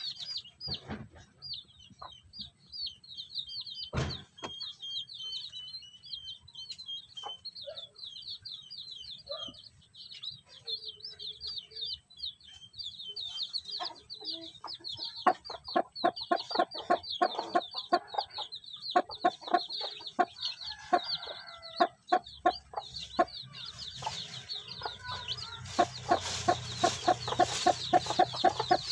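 Day-old chicks peeping, a constant stream of rapid high chirps. From about halfway through, the mother hen clucks in quick, evenly spaced low clucks, louder near the end. A single sharp knock about four seconds in.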